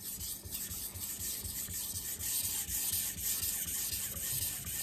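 Miyabi Mizu SG2-steel kiritsuki blade stroked back and forth on a Japanese water stone: a run of gritty rubbing strokes that grows a little louder about two seconds in. One side of the edge is being reground to a steeper angle, with a large burr already raised.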